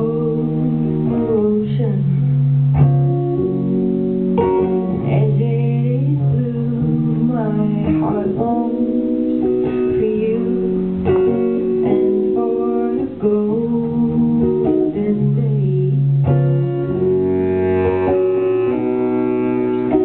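Live band music: an electric guitar with a bass clarinet holding long low notes underneath.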